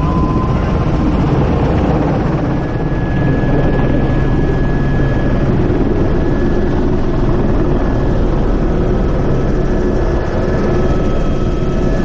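Helicopter's turbine engine and rotor running steadily, heard from inside the open-door cabin as it lifts off and climbs; a steady high turbine whine comes in over the rotor noise a couple of seconds in.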